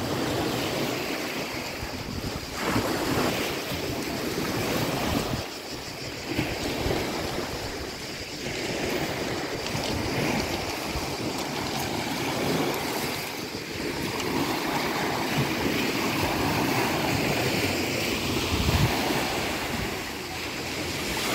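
Small waves breaking and washing over a pebble beach, rising and falling in swells, with wind buffeting the microphone.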